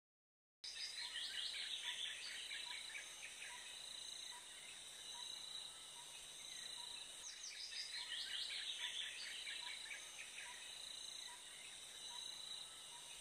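Faint field ambience at dusk: insects trilling steadily, with bursts of bird calls chattering near the start and again about seven seconds in, and a faint regular pip repeating under them. It fades in from silence about half a second in.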